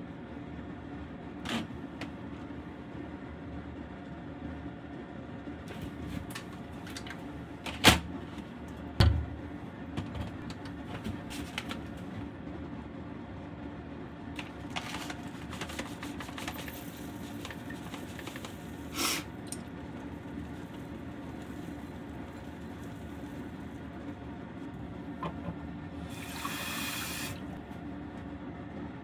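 Kitchen handling sounds over a steady low hum: a few sharp knocks, loudest about eight and nine seconds in, the crinkling of a plastic oatmeal bag in the middle, and a short burst of tap water running near the end.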